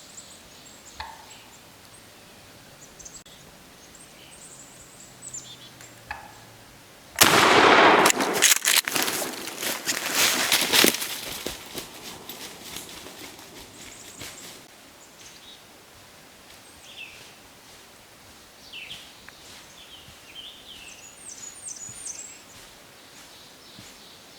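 Small birds chirping; about seven seconds in, a shotgun goes off in one sudden, very loud blast, followed by about three seconds of irregular rustling and thumps that fade out.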